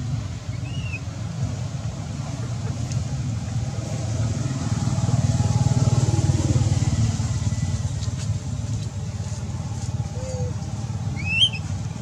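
A motor vehicle's engine passing by: a low rumble that swells to its loudest around the middle and then fades. Over it come short high squeaks from a baby macaque, once about a second in and louder, rising, near the end.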